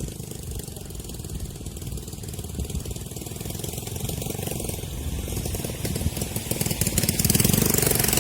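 A vehicle engine running close by with a rapid, rattling firing beat, getting louder over the last few seconds.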